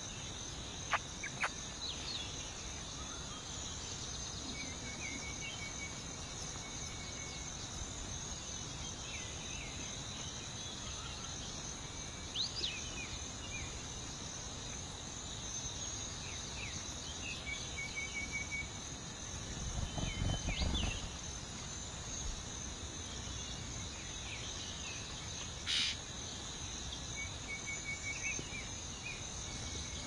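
Steady high-pitched insect chorus, with short bird chirps and trills now and then. A brief low rumble about twenty seconds in.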